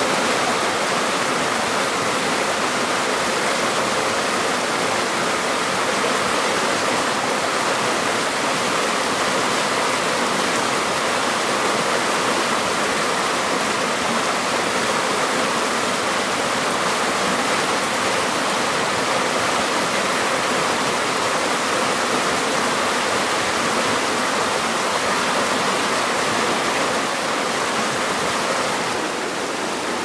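Forest river running steadily, an even rushing hiss of flowing water.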